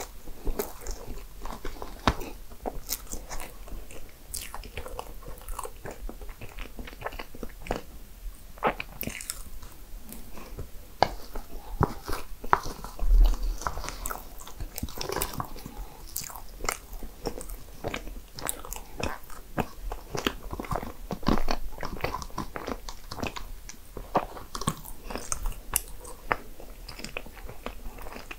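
Close-miked eating of desserts: bites and chewing with many small crisp crunches, the loudest bite about halfway through.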